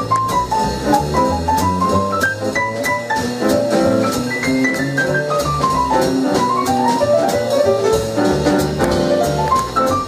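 Live jazz combo of a nine-foot Steinway grand piano, upright bass and drum kit playing swing, with quick runs of notes rising and falling over the bass line and cymbal ticks.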